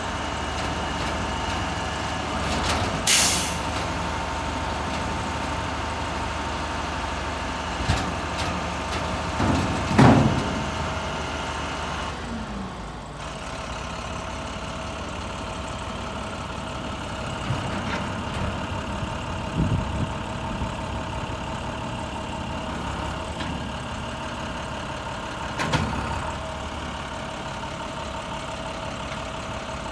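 Grapple truck's engine running steadily with a steady whine while the hydraulic knuckle boom and grapple are folded down and stowed. A short, sharp hiss about three seconds in, and several metal clanks and knocks as the boom settles, the loudest about ten seconds in.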